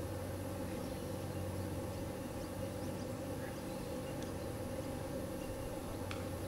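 Steady outdoor background: a low hum and hiss with a few faint high chirps, and a faint click near the end.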